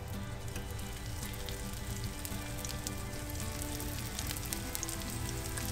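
Tuna pieces sizzling and crackling in hot oil in a nonstick frying pan as they are laid in one after another, the crackle growing busier as more pieces go in. Soft background music underneath.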